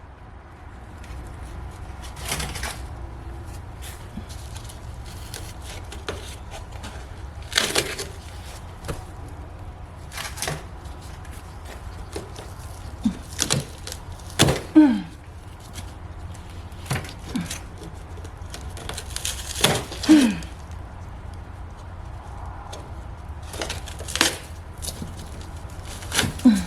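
Scattered knocks, taps and scrapes of wood wall paneling being worked loose and handled, with a few short falling creaks among them. A steady low hum runs underneath.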